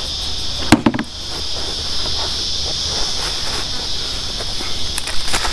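Steady high-pitched drone of insects. About a second in comes a short plastic clatter as the scarifier's grass-collection bin is unlatched and lifted off, with a couple of lighter clicks near the end.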